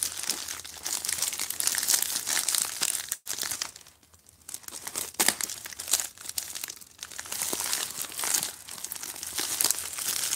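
Plastic bubble-padded mailer crinkling and rustling as it is handled and slit open with a knife, with short tearing sounds, briefly pausing a few seconds in.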